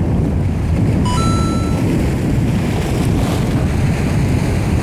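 Wind buffeting the microphone over waves washing against the rocks, a steady low rumbling hiss. About a second in, a short high tone sounds, stepping up in pitch once and lasting under a second.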